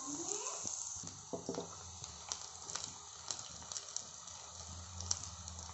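Cooked rice being tipped into a non-stick pan of frying vegetables: scattered light clicks and taps as it lands and is pushed about, over a soft steady sizzle.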